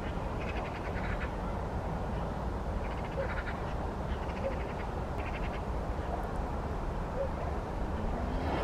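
Eurasian magpies giving their rattling chatter calls, about four short bursts, as they fly in to a communal night roost, over a steady low rumble.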